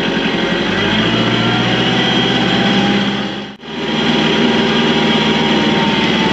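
A vehicle engine running steadily, its note shifting about a second in. The sound drops out for a moment about three and a half seconds in, then the engine runs on.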